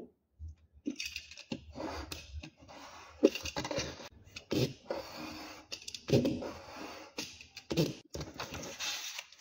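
Paper being trimmed with a craft knife drawn along a ruler: irregular scraping cuts and rustling, with a few sharper knocks as the ruler and paper are shifted.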